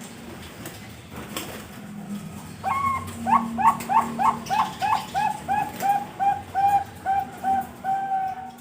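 Zebra dove (perkutut) singing: a long cooing phrase of about sixteen quick notes, roughly three a second, starting about two and a half seconds in. The notes slow slightly and the last ones are drawn out longer.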